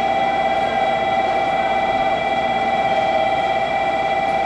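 Steady electrical hum of an electric train's on-board equipment, heard inside a carriage: several constant tones over a rushing background, with no change.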